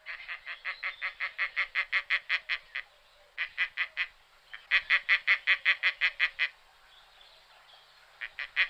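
A bird calling in rapid runs of short, evenly spaced notes, about six a second, in four bursts with short pauses between them.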